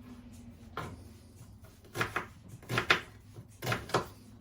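Kitchen clatter from pots and utensils being handled: a series of sharp knocks, one early and then three quick pairs in the second half.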